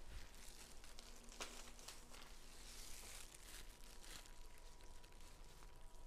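Faint crinkling and rustling of hands in clear plastic food gloves handling dried seaweed sheets, with a few light clicks.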